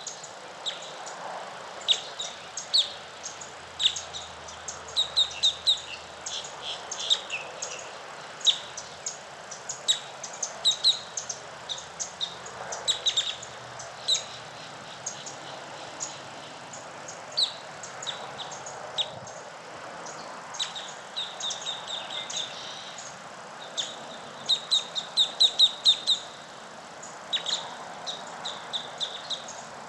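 Birds chirping in a dawn chorus: many short, high chirps, some in quick runs of several notes, over a steady background hiss.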